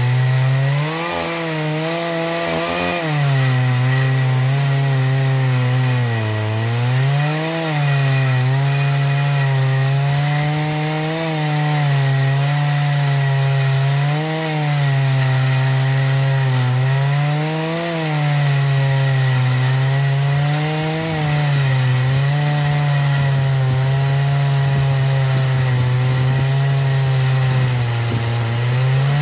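68cc Dolmar 120si two-stroke chainsaw with a 24-inch bar, held at full throttle under heavy load while ripping a slab lengthwise from a log in an Alaskan chainsaw mill. The engine pitch sags and recovers about every three seconds.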